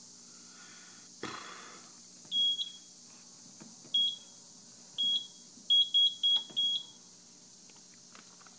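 Short, high electronic keypad beeps, as from buttons pressed on a fire alarm control panel: a few beeps about a second apart, then four in quick succession. A brief clunk and rustle about a second in.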